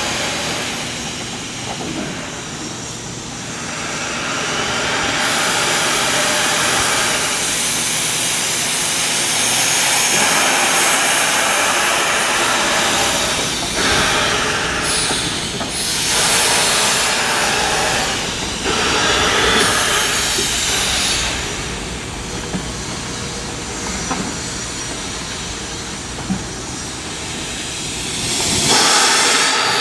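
Durango & Silverton No. 481, a K-36 2-8-2 steam locomotive, hissing steam as it stands on the turntable. The hiss swells and eases, with louder gusts about halfway through and again near the end.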